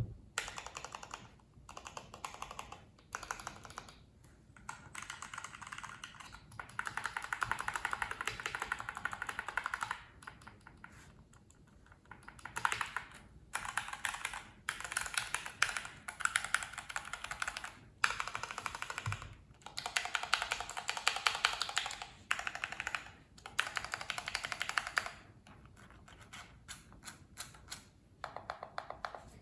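Typing on a GMMK PRO mechanical keyboard in its stock, unmodded state, fitted with Gateron KS-3 Yellow linear switches and PBT keycaps. Fast keystrokes come in runs of a few seconds with short pauses between them.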